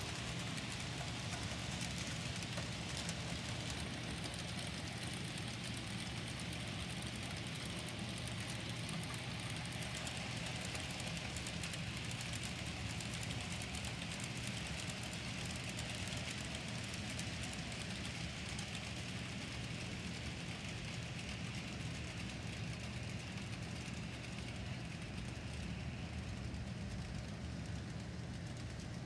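Model trains running on a layout: a steady mechanical running noise with a low hum underneath, the hiss easing slightly near the end.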